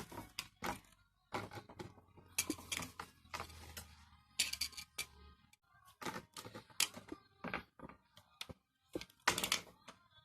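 Irregular clicking and knocking, several sharp clicks a second at uneven spacing, like small hard objects being handled.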